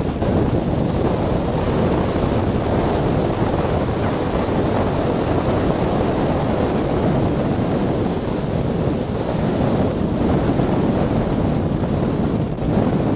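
Wind buffeting the microphone on a sailing yacht under way, over the steady rush of choppy waves.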